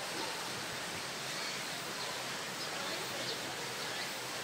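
Steady outdoor background noise, an even rush with no clear events, with a few faint short high chirps over it.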